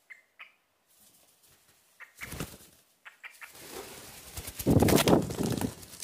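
A few faint short cockatiel chirps, then a cockatiel's wings flapping close by as it flies in. The flapping comes as a fluttering rush that grows loud in the last second and a half.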